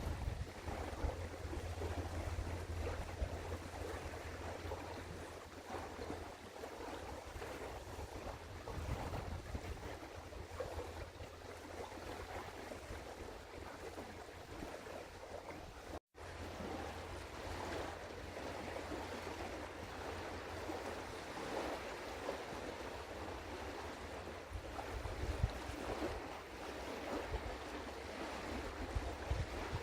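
Outdoor river-bank ambience from a webcam microphone: wind on the microphone and moving water over a steady low rumble. The wind gusts more strongly near the end. The sound cuts out for a moment about halfway through.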